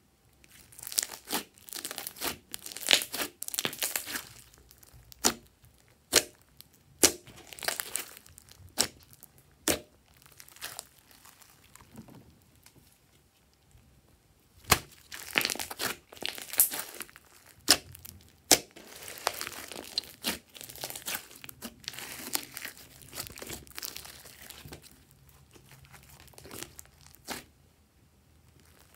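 Glossy slime being stretched, folded and squeezed by hand, giving sticky crackling and sharp pops, with a short lull partway through.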